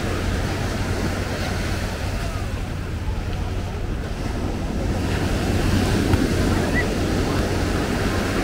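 Ocean surf washing onto the beach in a steady wash of noise, with wind buffeting the microphone.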